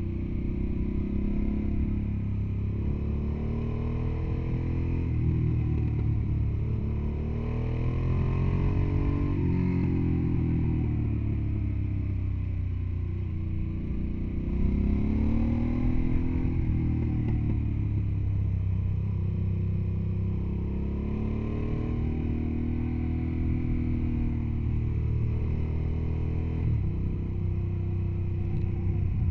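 Motorcycle engine running under way, its pitch climbing and falling again several times as the throttle opens and closes, over a steady low rumble.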